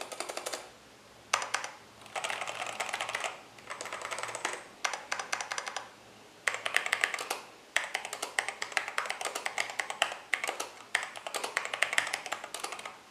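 Mechanical keyboard with Halo True tactile switches being typed on: runs of fast keystrokes broken by short pauses, about a second after the start, around the middle and a couple of brief gaps later.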